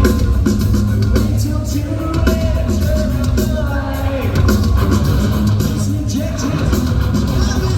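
Punk rock band playing live: loud distorted electric guitars, bass and drums under a sung vocal melody.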